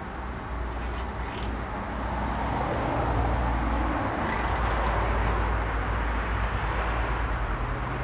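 Outdoor background noise with a low rumble that swells through the middle and eases off. A few short clicks and rustles come about a second in and again about four seconds in, as the nylon trellis netting is worked along the metal top rail.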